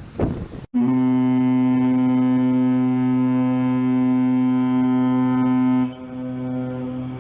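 A large air horn sounding one long, steady low note that starts sharply about a second in, then drops in level for its last second.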